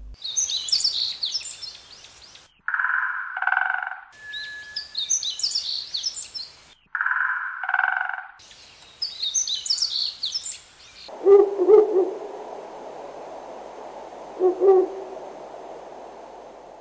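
Recorded jungle bird calls, looped: bursts of high twittering chirps alternate with a lower two-part call, twice over. About 11 seconds in, a lower, more even calling takes over, with two louder calls.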